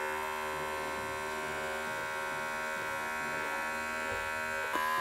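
Cordless electric hair clippers running with a steady buzz as their blade shears the wool yarn loops of a needle-punch design on denim; a small click near the end.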